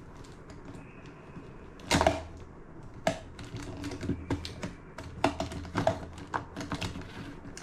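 Irregular light clicks and taps, like typing, with one louder knock about two seconds in and a busier run of clicks in the second half.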